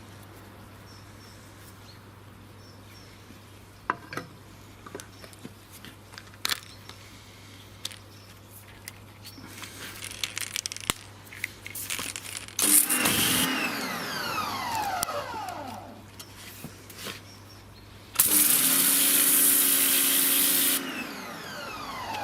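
Sunpow BCN-H electric pressure washer run in two bursts, about 13 s and 18 s in: each time the motor and pump start suddenly with a loud hiss of water spray, and each time its whine falls in pitch as the motor winds down. Before that, a few light clicks and knocks.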